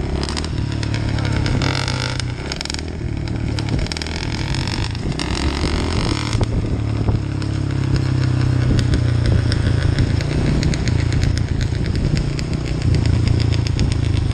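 Dirt bike engine running under way, its pitch rising and falling in the first half as the throttle is worked, then steadier and a little louder from about halfway, with wind noise on the microphone.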